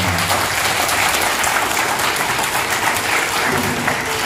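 A large seated audience in a hall applauding: dense, steady clapping.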